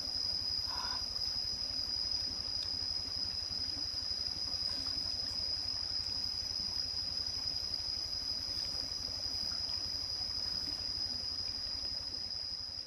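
Steady high-pitched drone of insects in the surrounding forest, one unbroken shrill tone, over a low, constant rumble.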